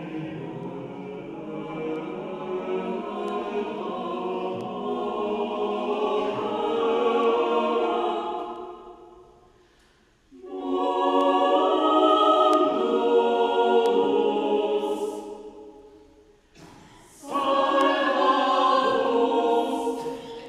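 Mixed chamber choir singing a cappella in sustained chords: a long phrase that swells and dies away about ten seconds in, then two more loud phrases, each entering suddenly and fading out, with a short pause between them.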